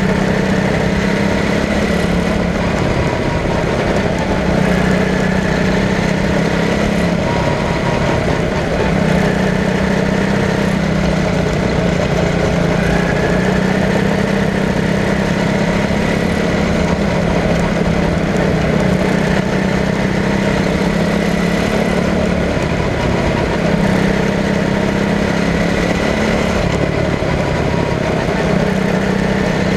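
Quarter midget race car's single-cylinder engine running at speed, heard onboard, its steady drone easing briefly every few seconds as the throttle comes off in the turns, over wind and tyre noise.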